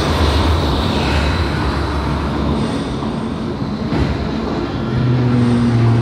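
Berlin U-Bahn train running into an elevated station, a low rumble with steady hiss that eases off about halfway through. Near the end a steady low droning hum comes in.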